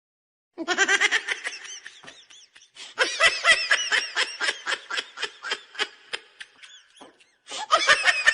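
Laughter sound effect: a high, pitched laugh in rapid, evenly spaced ha-ha pulses, about five a second. It starts after a moment of silence and breaks off briefly before a fresh burst near the end.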